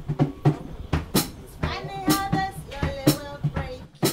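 Music: a song with a drum kit playing a steady beat over a repeating bass line, with a voice singing above it.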